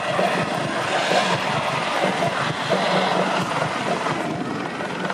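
Eurocopter helicopter with a Fenestron ducted tail rotor in flight: steady turbine and rotor noise over a fast, even pulsing from the main rotor blades.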